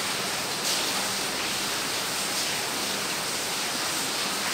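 A steady rushing hiss of background noise at an even level.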